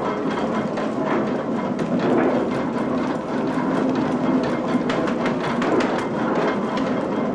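Old snuff-mill machinery running, including a wooden sieve frame shaking back and forth over ground snuff: a steady, dense clatter of wooden knocks and rattles.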